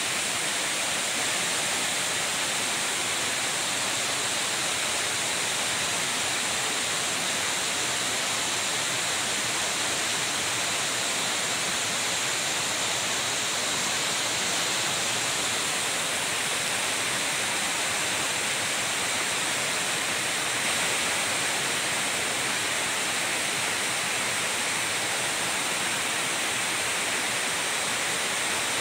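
Waterfall in spate, heavy muddy water pouring over rocks: a steady, even rush of falling water.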